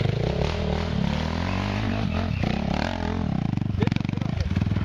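Off-road dirt bike engine working up a rough forest trail, its pitch rising and falling repeatedly with the throttle.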